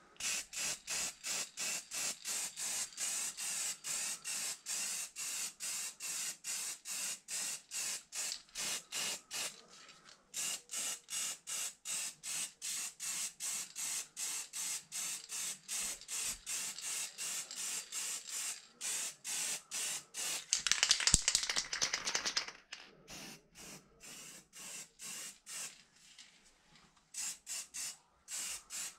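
Aerosol spray-paint can hissing in rapid short bursts, about three a second. One longer, louder continuous spray comes about two-thirds of the way through.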